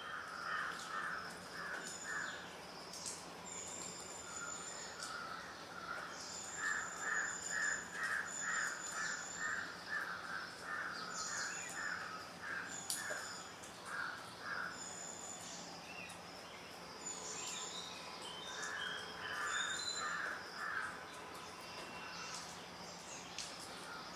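Juvenile grey hornbill calling: bouts of evenly repeated notes, roughly two or three a second, the longest run lasting several seconds in the middle. Thin high chirps of a smaller bird come and go over them.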